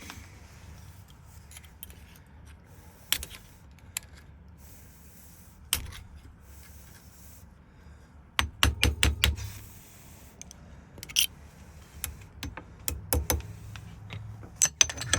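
Scattered small metal clicks and taps as a car lock cylinder and its parts are handled, with a quick run of clicks and knocks about eight to nine seconds in.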